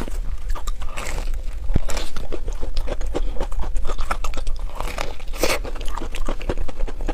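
Biting into and chewing a crumb-crusted cream puff: a run of crisp crunches from the crumb coating mixed with chewing, with heavier bursts of crunching about a second in and again near the end.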